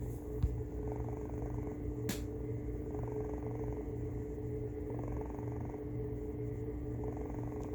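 A sleeping pet snoring, a low rasping rhythm that swells with each breath about every two seconds, over a steady faint hum. A sharp knock sounds about half a second in, and a brief click about two seconds in.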